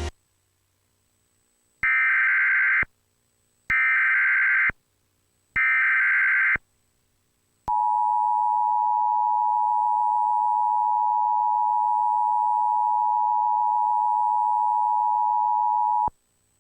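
Emergency Alert System alert tones from a Trilithic EASyPLUS unit: three roughly one-second bursts of the SAME digital header, about a second apart, then the steady two-tone attention signal sounding for about eight seconds before cutting off. These are valid EAS tones that announce a coming alert.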